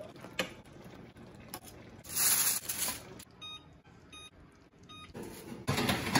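Electric oven's control panel beeping a few short times as its buttons are pressed to set the bake temperature. Two bursts of louder rushing noise come before and after the beeps.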